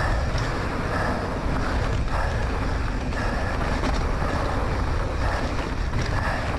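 Wind rushing over the microphone of a rider's camera at speed on a downhill mountain-bike run, a steady heavy rumble. Over it comes the rider's heavy breathing, a puff roughly once a second.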